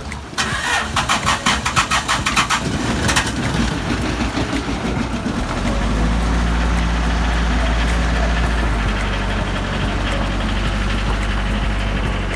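Outrigger boat's engine being started: about three seconds of rapid clattering as it cranks and catches, then from about five seconds in it settles into a steady low idle.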